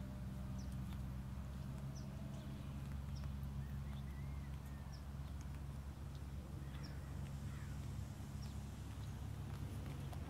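Outdoor ambience: a bird chirping at a steady pace, about one short high chirp a second, with a couple of warbling calls in the middle, over a steady low hum.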